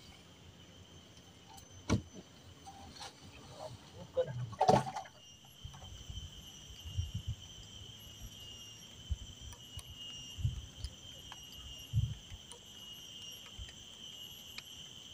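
Steady high-pitched insect chorus, with a few scattered knocks and low thumps, the loudest about two and five seconds in.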